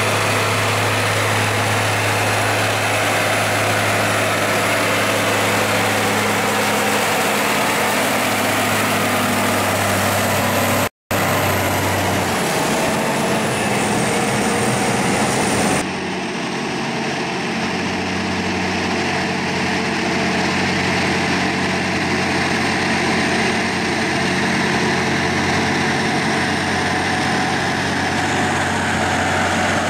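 Diesel engines of two Rába-Steiger articulated tractors running steadily at low speed as they drive along, a continuous low engine hum. The sound cuts out for an instant about eleven seconds in and changes in tone about five seconds later.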